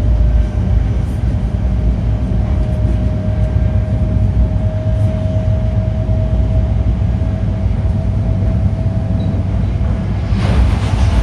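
Onboard running sound of an E5-series Shinkansen car: a heavy low rumble with a steady whine from the Toshiba IGBT-VVVF traction inverter and motors, creeping slightly upward in pitch. About ten seconds in, a louder rushing noise sets in over it.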